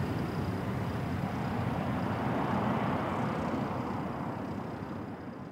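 Jet engine noise of a departing Airbus A330: a steady rushing roar with a thin high whine over it, swelling slightly midway and fading away near the end.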